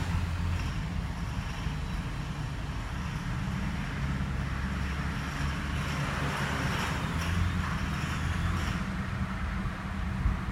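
First-generation Nissan Murano (Z50) with its VQ35DE V6 running at a steady low drone, with an unidentified rattle, tagged as occurring around 1800 rpm.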